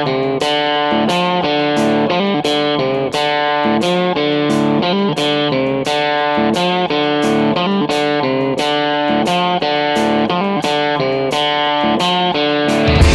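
Background music: picked electric guitar playing a steady run of notes, about two a second.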